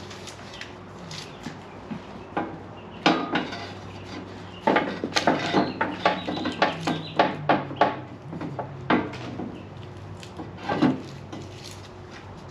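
A run of irregular knocks and clatters of hard objects being handled and set down, busiest in the middle, over a steady low hum.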